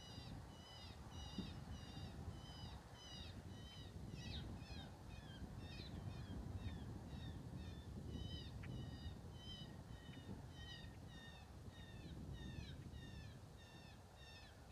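Electronic predator caller (FoxPro) playing a distress call: a steady series of short, high-pitched falling cries, about two a second, used to lure the coyote in. A low wind rumble runs underneath.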